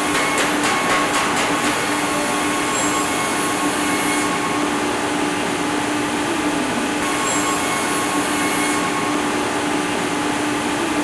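Factory machinery running steadily: a loud, even rushing noise with a constant hum, and a rapid clicking in the first couple of seconds.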